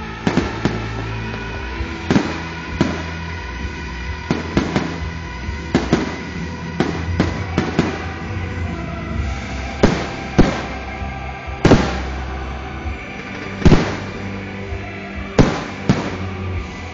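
A fireworks display going off over accompanying music: about twenty sharp bangs and pops at irregular intervals, some in quick clusters, the loudest about two thirds of the way through.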